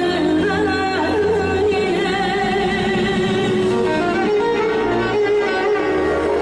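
Live Azerbaijani mugham music: an ornamented melody with fast wavering trills over a held low bass note that drops away about two seconds in.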